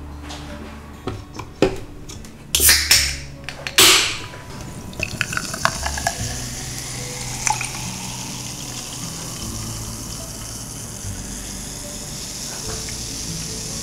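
Carbonated Brother Soda poured from an aluminium can into a glass, fizzing steadily. Before it, about three and four seconds in, come a couple of loud bursts of handling noise.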